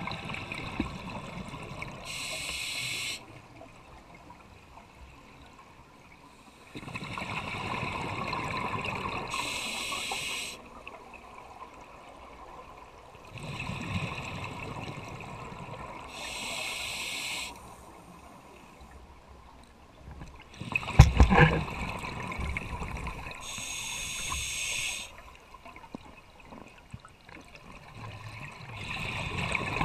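Scuba diver breathing through a regulator underwater: a rushing gurgle of exhaled bubbles alternating with a short hiss of the regulator on each breath, about one breath every seven seconds. A single sharp knock about two-thirds of the way through.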